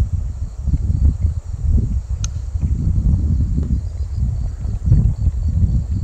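Wind buffeting the microphone in uneven gusts, with crickets chirping steadily in the background.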